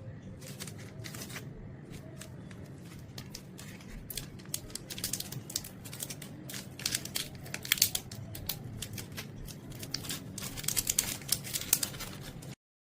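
Chocolate bar wrapper being crinkled and torn open, a run of crackling rustles that grows denser and louder after the first few seconds and stops abruptly near the end.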